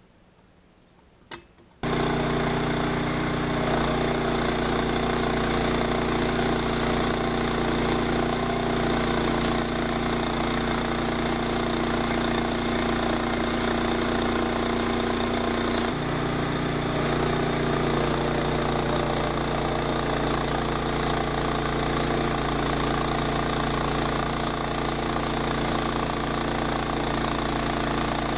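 Engine of a lumber-milling sawmill comes in suddenly about two seconds in and runs steadily, with its note shifting once around the middle.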